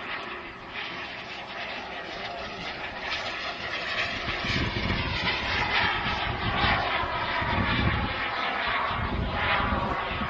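Small jet turbine of a radio-controlled Reaction 54 model jet in flight, a steady jet rush and whine. It grows louder about halfway through, with its pitch falling as the jet passes.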